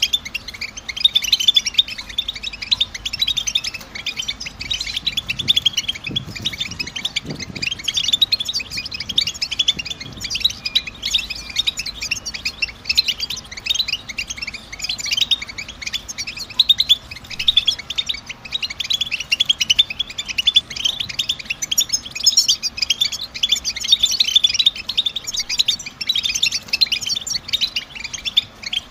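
European goldfinch twittering: a dense, continuous chatter of fast, high chirps, the 'batbata' twitter that keepers play to stimulate caged goldfinches to sing.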